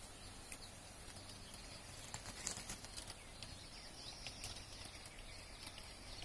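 Quiet outdoor ambience, with a few faint scattered clicks and a faint high chirping from past the middle.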